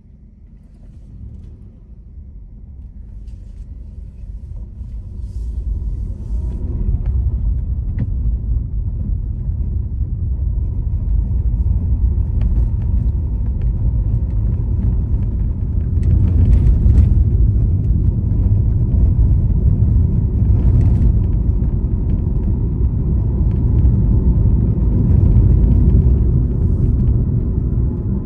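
A car's low road and engine rumble as it pulls away and picks up speed, growing louder over the first several seconds and then holding steady, with a few brief knocks from the road.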